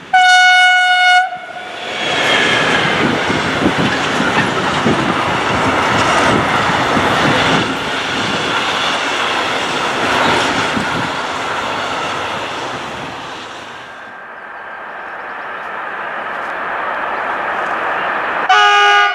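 An electric locomotive gives one short horn blast, then its long intermodal container freight train passes close by: a loud rushing, rattling roll of wagons with rail clatter that eases to a quieter rumble about two-thirds in. Near the end a second locomotive sounds a brief horn on several tones at a lower pitch.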